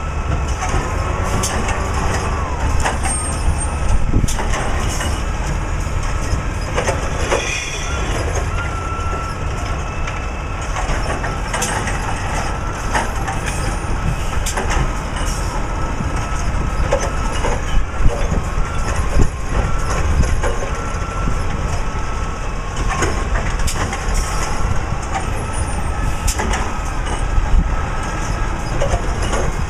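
Recycling truck's engine running with a steady low rumble, with scattered knocks and clanks of carts being handled, the loudest about eighteen seconds in.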